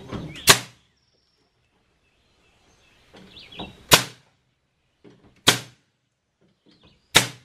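Pneumatic nail gun firing nails into wooden framing: four sharp shots about one and a half to three seconds apart.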